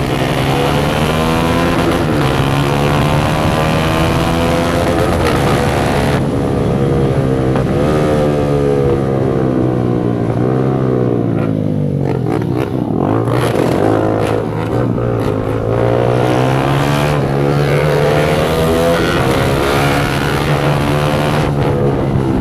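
Motorcycle with its silencer opened up, ridden hard: the engine note climbs through the revs and drops at each gear change, again and again, and eases off briefly around the middle before pulling up again.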